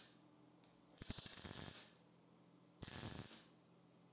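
MIG welder laying short tack welds: two bursts of crackling arc, about a second in and again near three seconds, the first a little under a second long, the second about half a second, with a steady low hum between them.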